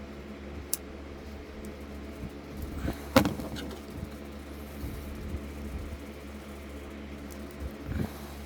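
Lock-picking tools working in an Abus E60 padlock: a small sharp click about a second in, a louder metallic knock with a brief ring about three seconds in, and a softer knock near the end, over a steady low hum.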